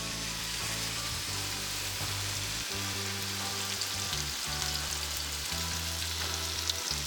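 Seasoned sirloin steak frying in hot olive oil in a pan: a steady sizzle with fine crackles.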